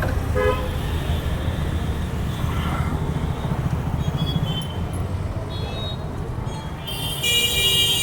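Road traffic running steadily past, with a short vehicle horn toot about half a second in and a higher, brighter horn sounding near the end, picked up by a smartphone's built-in microphone.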